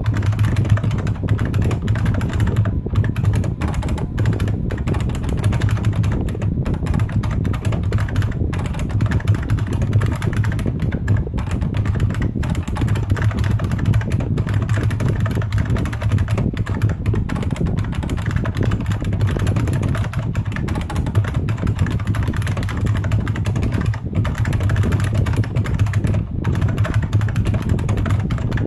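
Fast, continuous typing on a Unicomp Ultra Classic buckling-spring keyboard, a dense unbroken clatter of keystrokes over a steady low hum.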